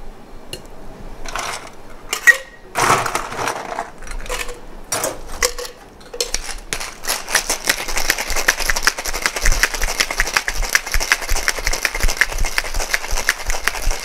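Ice rattling inside a metal cocktail shaker being shaken hard, a fast, even rattle that sets in about six seconds in after a few scattered knocks and clatters of handling the shaker.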